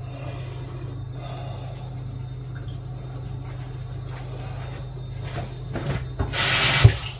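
Steady low hum in a kitchen with faint clicks of handling, then a short, sharp hiss lasting about half a second, about six seconds in.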